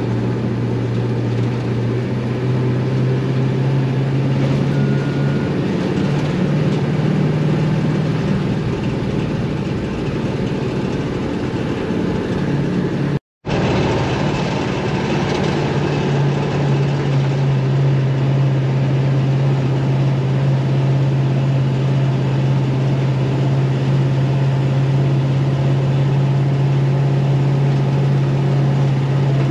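International 4600 dump truck's naturally aspirated 7.3 IDI V8 diesel droning steadily under way, with a slight rise in pitch a few seconds in. The sound breaks off for a moment about 13 seconds in.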